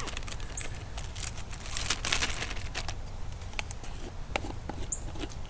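Crinkling of a plastic zip-top bag and small clicks and knocks of containers being handled, densest about two seconds in.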